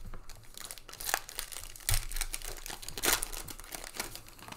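Wrapper of a Panini Prizm trading card pack being torn open and crinkled by hand, with sharp crackles about one, two and three seconds in.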